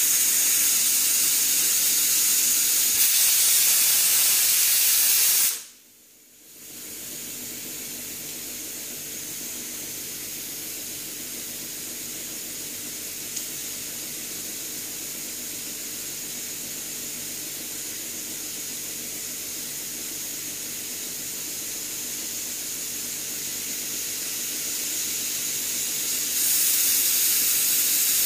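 Pressure cooker on the gas hissing steadily as steam escapes past its whistle weight while pressure builds toward a whistle. The loud hiss breaks off sharply about six seconds in, comes back as a quieter hiss that slowly swells, and turns loud again near the end.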